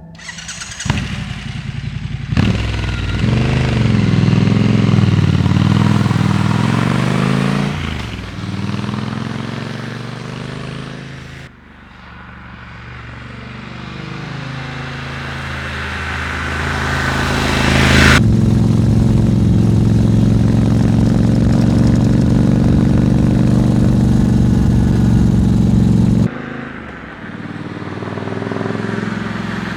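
Triumph Scrambler 1200 XE's 1200 cc parallel-twin engine running on the move, its pitch rising and falling with the throttle. The sound changes abruptly a few times, as between separate stretches of riding.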